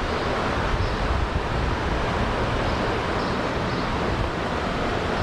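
Steady rushing of water pouring over a river spillway, an even, unbroken noise.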